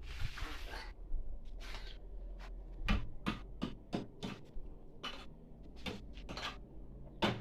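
Handling noise: a rustle in the first second, then a string of irregular light clicks and knocks.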